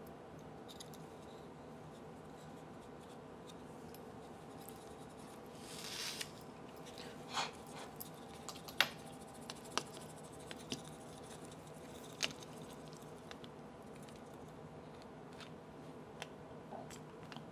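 Small plastic clicks and scraping as the casing parts of a LeapFrog Tag reader pen are handled and fitted back together, a few sharp clicks scattered through the middle, over a faint steady hum.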